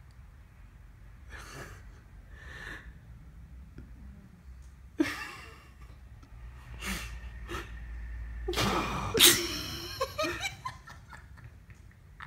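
A person stifling laughter: breathy snickers and gasps through the nose, building to a louder burst of laughter about nine seconds in.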